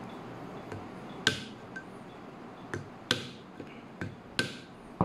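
A hammer striking a screwdriver set against a blender's replacement drive coupling: about five sharp knocks at uneven spacing, some with a brief metallic ring. Each blow turns the coupling counterclockwise to tighten it onto the motor shaft.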